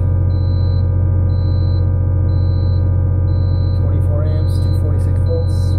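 PowerJack split-phase power inverter humming loudly and steadily while delivering about 5,000 W at 240 V. A faint high beep repeats about once a second over the hum.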